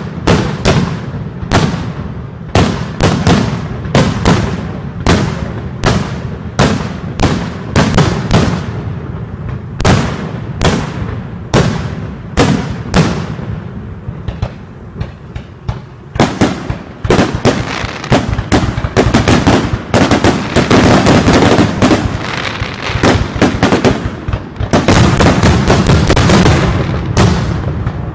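A fireworks display with shells bursting in quick succession, roughly one or two sharp bangs a second. The bangs thin out to fainter pops around the middle, then build into a dense, almost continuous barrage of bangs and crackle.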